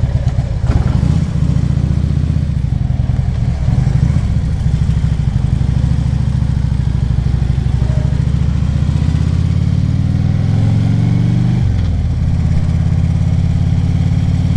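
Harley-Davidson Ultra Limited's V-twin engine running under way, its pitch climbing gradually for several seconds and then falling sharply near the end.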